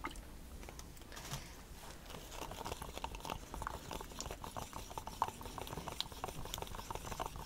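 Thickened white house paint being worked in a plastic cup: a run of small, wet, irregular clicks and taps that starts about two seconds in.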